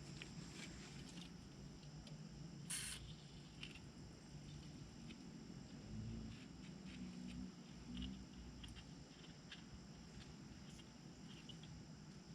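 Mostly quiet, with small scattered ticks and rustles; about three seconds in, a short hiss of PB Blaster aerosol penetrating oil being sprayed onto the rusted hub. A faint steady high whine sits underneath.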